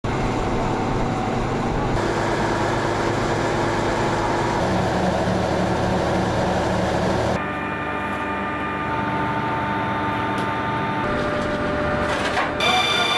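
Steady running noise of airfield ground-support vehicles and equipment, with a steady whine over a low engine rumble. The sound changes abruptly several times.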